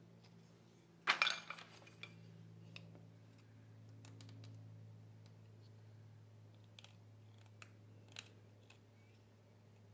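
Small hand-held carving blade cutting and scraping a tagua nut (vegetable ivory): one crisp, loud cut about a second in, then scattered faint clicks and scrapes of the blade on the nut.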